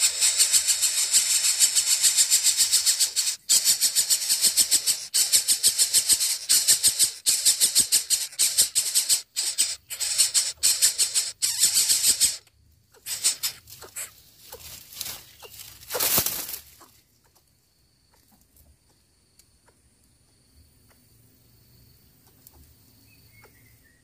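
Coucal nestlings giving harsh, rapidly pulsing hissing begging calls with bills gaping. The calls break off a little under halfway through, and a few scattered bursts follow before only faint steady high tones remain.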